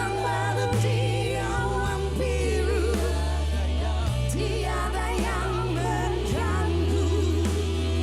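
Live band music: held bass notes under a wavering melody, in an instrumental passage of a pop-rock song.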